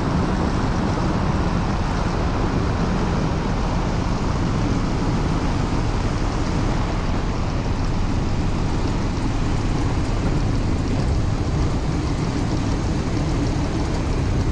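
Ultralight trike rolling out along a runway after touchdown, slowing down: a steady rush of wind over the wing-mounted camera together with the trike's engine running at low power.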